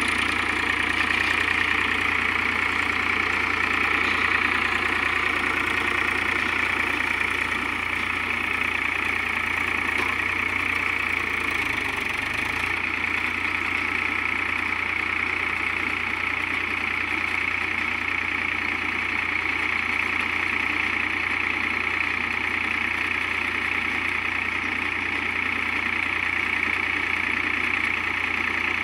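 Tractor engine running steadily under load as it powers a Gomathi baler, a continuous mechanical din with a constant low hum.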